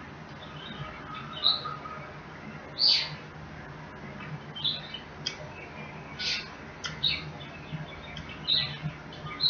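Close-up mouth sounds of eating: short, wet lip smacks and chewing squeaks, one roughly every second.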